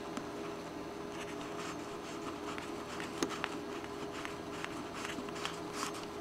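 Vintage AM car radio tuned off-station, its speaker giving a steady hiss with irregular static crackles and a faint steady hum.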